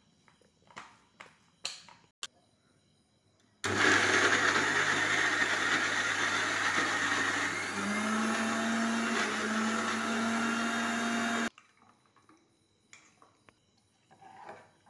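Electric kitchen mixer grinder with a steel jar switched on about four seconds in, running loudly for about eight seconds, then cutting off suddenly.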